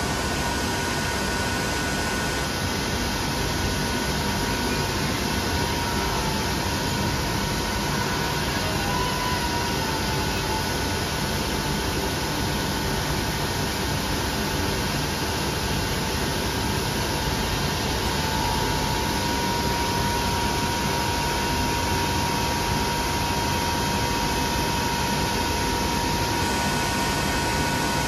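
Steady, even hiss and hum with a couple of faint constant tones and no separate events: the background noise of a machine shop hall.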